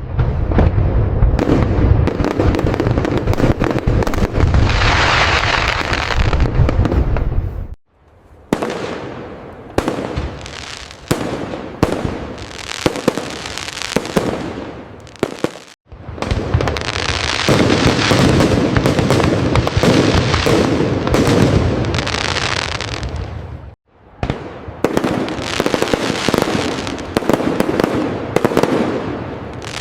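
Fireworks going off: dense barrages of booms and crackle alternate with runs of separate sharp bangs, each passage breaking off abruptly about every eight seconds.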